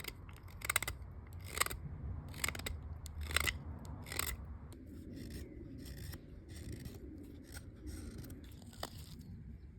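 Carving knife slicing shavings from a wooden spoon blank in repeated strokes. There are five firm cuts a little under a second apart, then lighter, quicker strokes about twice a second.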